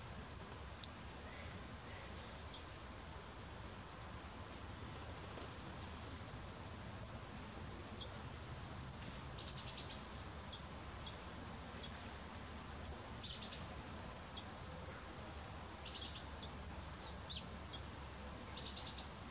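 Blue tits calling: thin, high chirps scattered throughout, with four brief buzzy trills, over a faint low background rumble.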